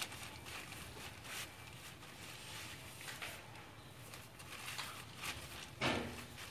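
Rubber-gloved hands patting and pressing wet cement mortar into a plastic-lined lid: soft, irregular dabbing strokes, with one brief louder sound about six seconds in.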